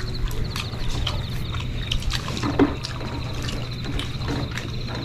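Close-up eating of crispy fried chicken drumsticks: chewing with irregular small crunches and mouth smacks, over a steady low hum.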